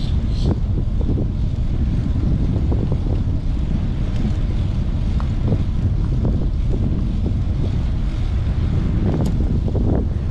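Wind buffeting the microphone of a camera riding along on a bicycle: a loud, steady low rumble with irregular gusty flutter.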